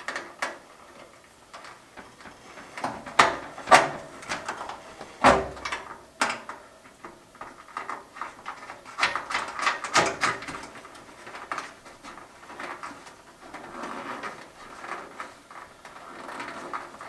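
Hands at work fitting parts of an electric ceiling-mount heater: scattered clicks, scrapes and a few sharp knocks of metal and plastic being handled and fastened.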